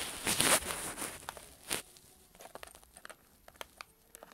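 Rustling and handling noise for about the first half-second, then scattered light clicks and taps as small plastic toy building bricks are picked up and pressed together.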